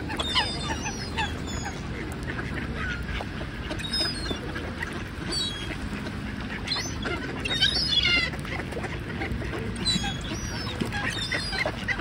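A large flock of mallard ducks quacking, many short calls overlapping, with higher squealing calls scattered among them over a steady low rumble.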